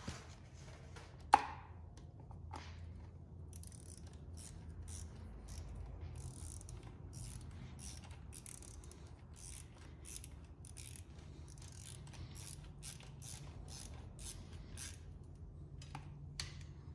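Ratchet wrench with a 12mm socket clicking in runs of quick strokes as an engine crash-bar bolt is tightened. There is one sharp metal clink about a second in, and a steady low hum runs underneath.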